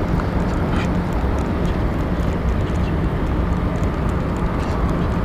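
Steady low rumble, with a few faint ticks over it.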